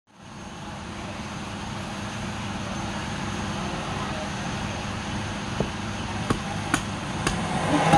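A steady background hiss with a low hum, then, from about five and a half seconds in, sharp knocks about twice a second: hand chopping and knocking of a machete blade and a wooden block against a wooden stump.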